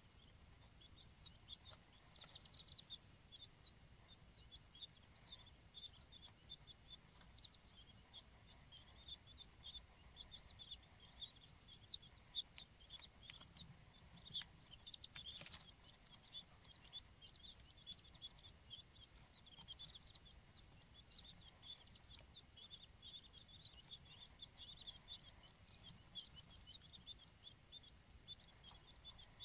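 King quail chicks peeping faintly and without pause, many short high peeps in quick succession. There is one sharp click about fifteen seconds in.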